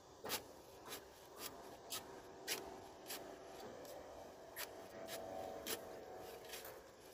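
Shovel blade working the ground at the base of a mailbox post: short, sharp scrapes and jabs, roughly two a second, with a lull partway through.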